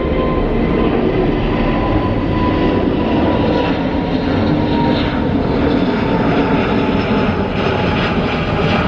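Loud, steady noise of a jet airliner's engines: a dense rush with a faint high whine held over it.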